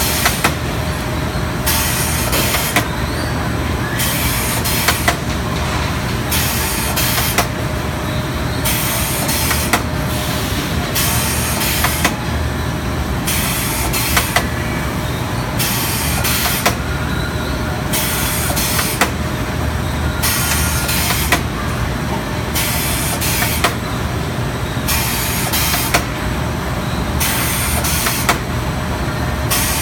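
STEEN ST 828 drumstick deboning machine running in a processing line: a steady mechanical hum with a hiss that comes on and off about every one and a half seconds, and occasional sharp clicks.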